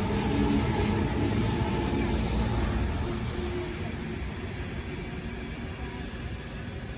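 Sydney Trains electric train moving away, its low rumble and motor hum fading gradually.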